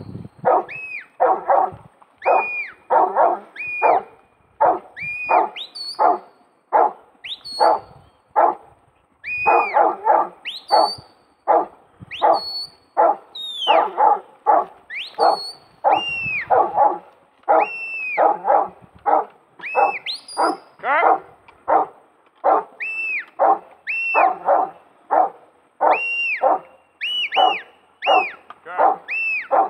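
Huntaway sheepdog barking repeatedly, more than one bark a second without a break, each bark falling in pitch at its end. This is the loud working bark a huntaway uses to drive sheep up a hill.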